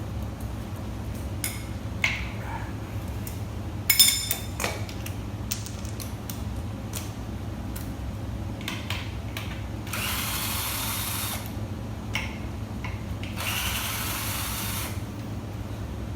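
Power tool running in two short bursts on the bolts of a Ford 4R75E transmission, about ten and thirteen seconds in. Before them come a few metal clicks and a sharp knock about four seconds in, over a steady low hum.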